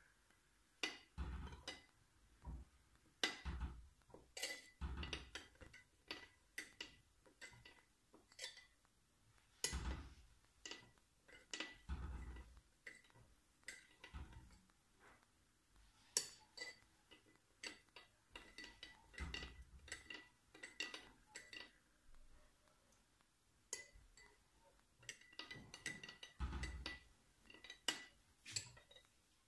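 Metal spoon stirring liquid in a small glass bowl, clinking irregularly against the glass with a faint ring.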